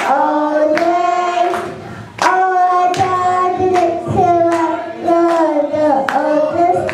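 Group of children singing a Christmas song together, with hand claps on the beat about every two-thirds of a second. The singing dips briefly about two seconds in, then picks up again.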